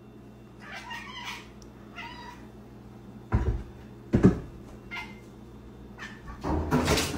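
A cat meowing a few short times, with two heavy thumps in the middle as it jumps down from the top of a refrigerator onto the kitchen counter. A louder noisy clatter comes near the end, over a steady low hum.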